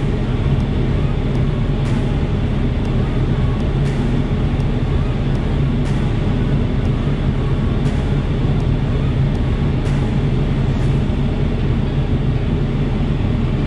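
Ram 1500's 3.0-litre EcoDiesel V6 idling steadily at about 800 rpm, a constant low diesel hum: the forced DPF regeneration has not yet begun and the idle has not risen.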